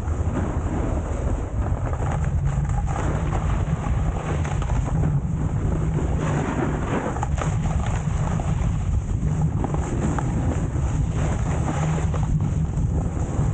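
Heavy wind buffeting the microphone: a steady low rumble with a rushing hiss over it, as from moving fast down a slope.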